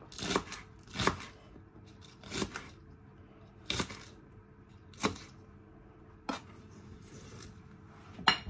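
A kitchen knife chopping celery stalks on a wooden cutting board: single sharp chops roughly a second or more apart, about seven in all, the last one near the end with a brief ring.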